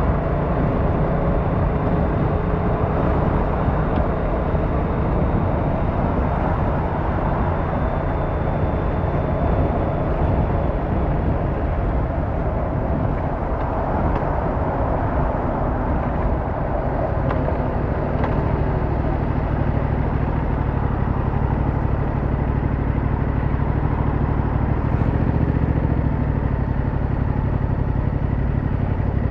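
Yamaha MT-07's 689cc parallel-twin engine running steadily while riding, its note shifting a little partway through.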